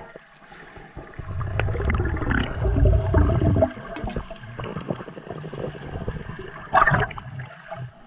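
Underwater sounds of hand digging through pebbly seabed sand: a loud, muffled rumbling and churning for about three seconds, then a brief high ringing tone about four seconds in, and a short rustle near the end.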